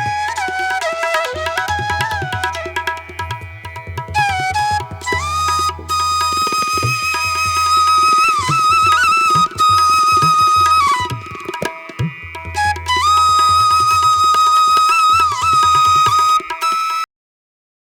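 Instrumental background music: a held, flute-like melody over a low drone and hand-drum strokes, cutting off suddenly near the end.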